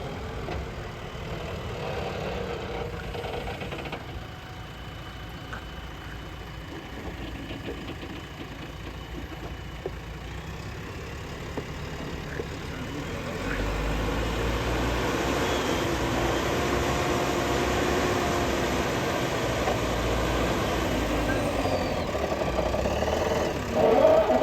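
JCB earthmoving machine's diesel engine running steadily, growing louder and deeper about halfway through, with a brief louder burst near the end.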